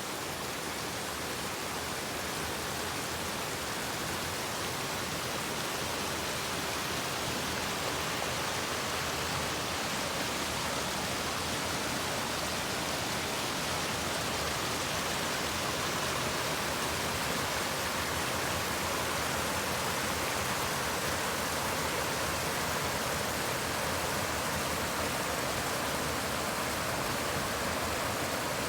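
Mountain river flowing, a steady rush of water.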